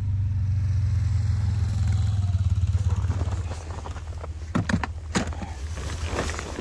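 ATV engine running at low revs, its rumble fading about three seconds in. A few short knocks follow as gear and crates are handled.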